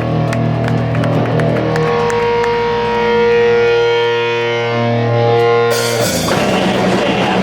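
Live rock band playing through an amplified PA: held, ringing electric guitar notes, then about six seconds in the full band crashes in with drums, cymbals and distorted guitar.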